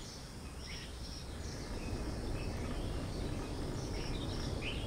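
Birds chirping in short, scattered calls over a low, steady background rumble.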